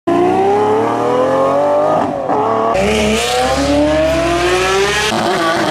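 A sports car engine revving hard as the car accelerates, its pitch climbing steadily, dropping about two seconds in at an upshift, then climbing again.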